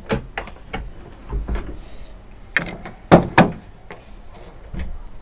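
Latch clicks as the rear glass hatch of a Ford pickup's canopy is unlocked and swung up, then two loud metal clunks about three seconds in as the tailgate is dropped open, and a lighter knock near the end.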